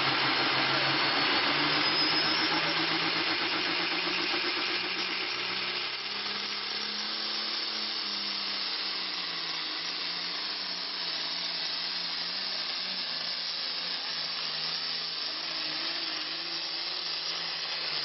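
Turbocharged diesel John Deere pulling tractor running flat out as it hauls a weight-transfer sled, with a dense exhaust and turbo hiss over a low engine note that wavers as it digs down the track. It grows a little fainter after about five seconds.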